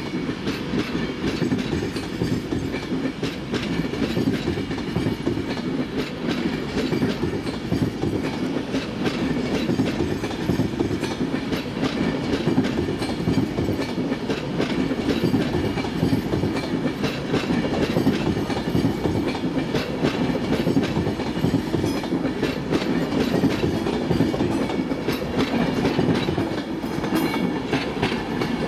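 Railway train running steadily on the track, its wheels clattering over the rail joints with many small clicks.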